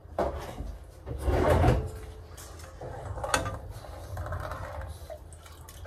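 A kitchen drawer sliding open and shut, with a rattle of its contents. About three seconds in comes a single sharp knock, as a metal utensil goes into a pot.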